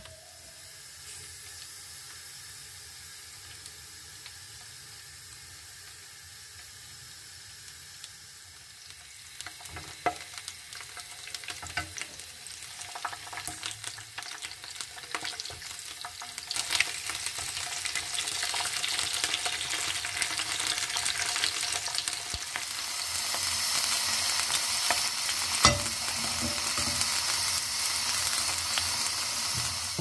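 Long red peppers frying in hot oil in a pan: a steady sizzle that starts quiet and grows louder partway through, with a few sharp clicks as a metal fork turns them against the pan.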